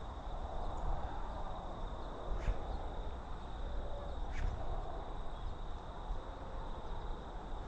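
Steady outdoor background noise, strongest at the low end, with a few faint clicks about two and a half and four and a half seconds in.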